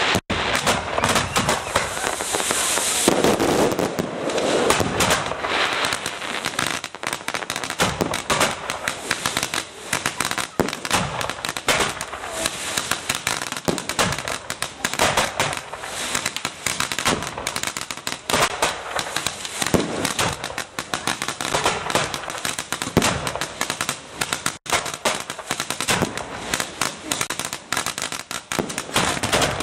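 Consumer fireworks going off in rapid, near-continuous succession: a dense run of sharp bangs and crackling, with a high hiss over the first few seconds.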